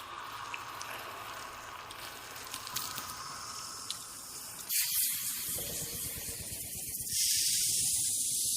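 A steady high hissing noise that starts suddenly partway through and grows louder about two seconds later, over a low background with a few faint clicks.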